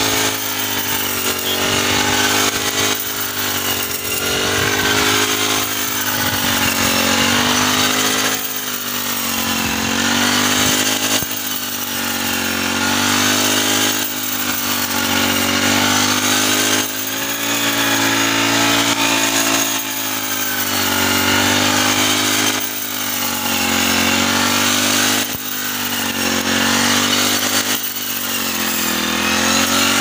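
Backpack brush cutter fitted as a wheat reaper, its engine running hard with the pitch dipping and recovering every two to three seconds as the blade works through standing wheat.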